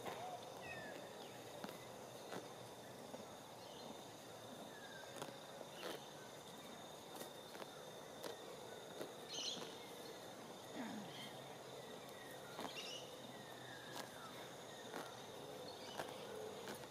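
Faint rural outdoor ambience: a steady insect drone with occasional short chirps and a few light clicks.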